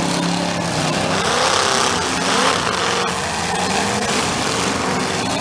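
Engines of old American demolition derby cars running together, several at once, with one revving up about two seconds in.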